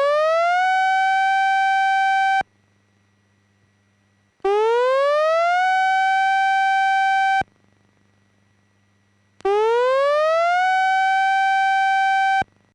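Warning siren sounding in three blasts, each rising quickly in pitch, holding steady for about two seconds and cutting off, with about two seconds of silence between blasts. The three-seconds-on, two-seconds-off pattern is the one Japan uses for a major tsunami warning.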